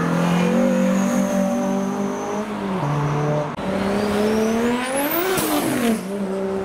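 Five-cylinder car engine running, then revved. Its note holds steady, dips briefly, then climbs for about two seconds to a peak and drops back.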